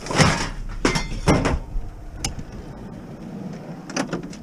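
A small child's bicycle being shoved into a van's packed cargo area: its metal frame and wheels clatter and knock against the load, with several thumps in the first second and a half, a lighter click a little later, and another knock near the end.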